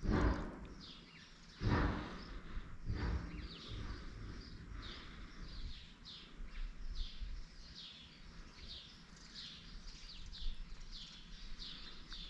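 A bird calling steadily in a long series of short, high, falling chirps, about two a second. Three short, louder noises come in the first three seconds.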